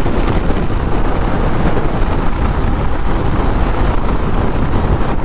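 Steady wind rush on the microphone with engine and road noise from a motorcycle riding at speed.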